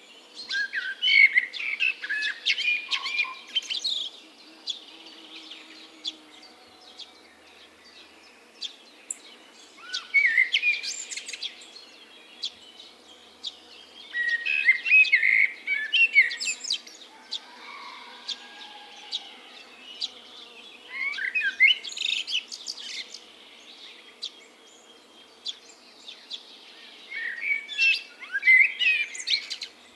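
Songbirds singing in bouts of rapid chirping and twittering phrases every few seconds, with quieter stretches between the bouts.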